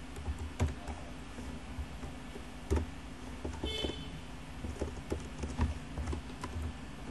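Computer keyboard being typed on: scattered, irregular key clicks, a few sharper than the rest, over a steady low hum.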